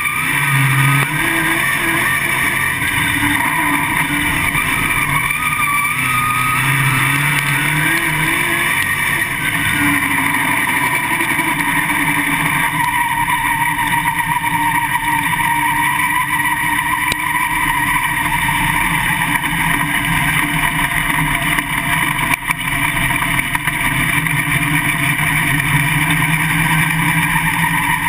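Winged dirt late model race car's V8 engine heard from inside the cockpit, running continuously with its pitch rising and falling as the throttle changes.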